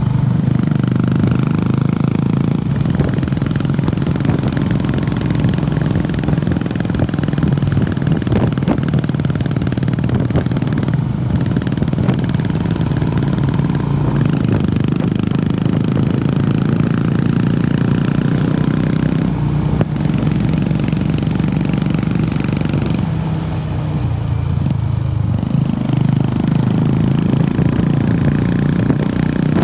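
Honda CB350RS's air-cooled single-cylinder engine running steadily under way, with a short dip in revs and loudness about three-quarters of the way through before it picks up again.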